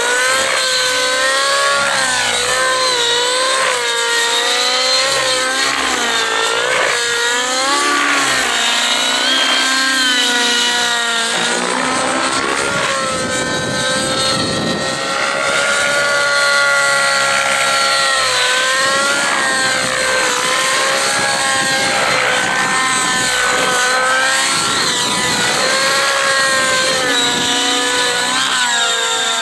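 Rave ENV 90 nitro RC helicopter's engine and rotor running hard through aerobatic flight. Its pitch rises and falls over and over as throttle and rotor load change.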